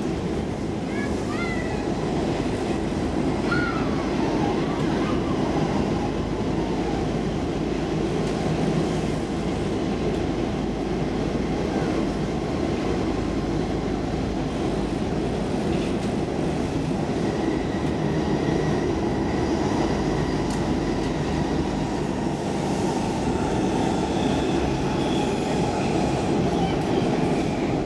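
Stockholm metro C14 car running at speed, heard from inside the car: a steady rumble of wheels on rail. Faint high wheel squeals come in during the second half.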